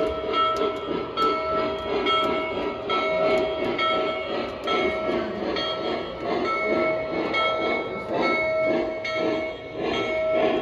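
Lionel Legacy O-gauge model train in New Haven Railroad livery, its onboard electronic sound system giving a long, steady horn-like tone broken by short gaps about every second, over a rhythmic pulsing and faint clicking of the running train.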